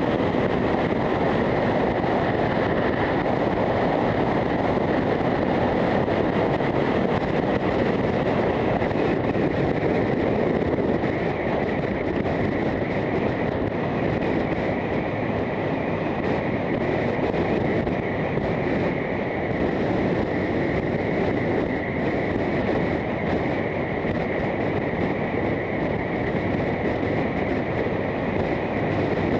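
Steady wind noise on a helmet-mounted camera while riding a 2009 Harley-Davidson Fat Boy motorcycle at highway speed.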